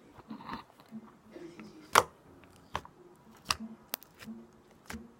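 Homemade glitter slime being squished and stretched by hand, giving soft squelching between a handful of sharp popping clicks, the loudest about two seconds in.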